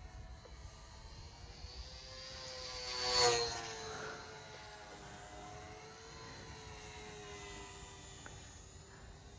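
Small electric RC model Mosquito's motors and propellers whining in a flyby: it grows louder to a peak about three seconds in, and its pitch drops as it passes, then it carries on at a lower, steady level.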